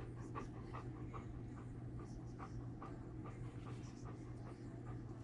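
A dog panting softly in quick, short breaths, over a steady low hum.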